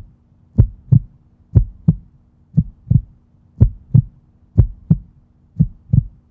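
Heartbeat sound effect: paired low thumps, lub-dub, about once a second, over a faint steady hum.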